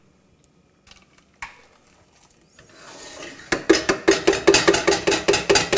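Kitchen utensil work: a few faint clicks, then from about three and a half seconds in a fast, even run of sharp knocks and scrapes, about five a second.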